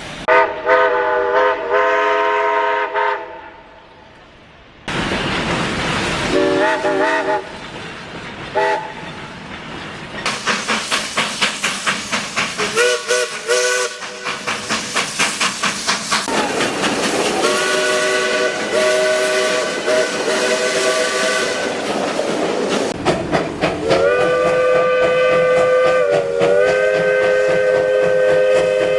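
Steam locomotive chime whistles sounding a series of blasts, several notes at once, some short and some held for several seconds. From about ten seconds in, a locomotive's exhaust chuffs at about three beats a second under a steady steam hiss.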